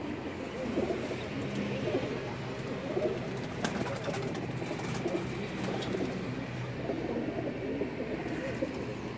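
A loft full of domestic pigeons cooing continuously, many low coos overlapping. A single sharp click comes about three and a half seconds in.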